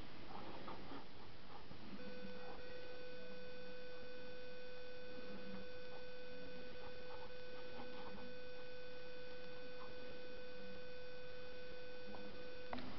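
Faint scratching of a pen drawing on sketchbook paper, under a steady unbroken tone that comes in about two seconds in and cuts off suddenly near the end.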